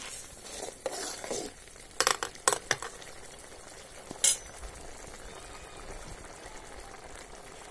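A metal ladle in a pot of thick, fully cooked dal knocks against the aluminium pot, with a few clinks about two seconds in and one more just past the middle. Under the clinks the mushy dal bubbles softly as it simmers.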